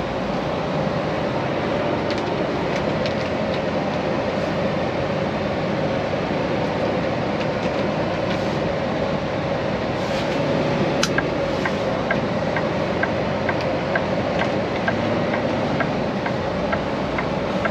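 Semi truck heard from inside the cab: a steady engine and road drone as it creeps along. About two-thirds of the way through there is a single sharp click, and then the turn signal ticks evenly, just under twice a second.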